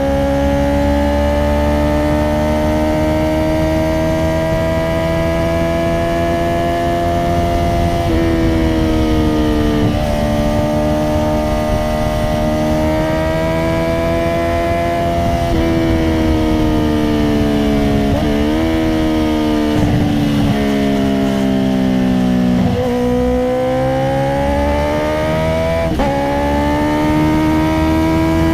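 Honda CBR650R's inline-four engine, breathing through an Akrapovic titanium exhaust with no dB killer, running under way. The engine note drifts slowly up and down in pitch, with several sudden jumps and drops in pitch along the way.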